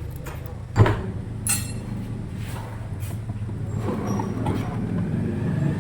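A sharp metal knock, then a ringing metallic clink and a few lighter taps, as tools and engine parts are handled during an engine overhaul, over a steady low hum.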